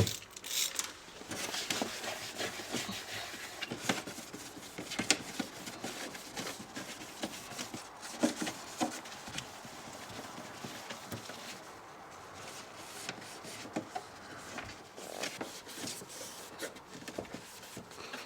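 Cloth scrubbing and wiping the inside of a fridge: a steady rubbing hiss broken by many irregular small taps and knocks.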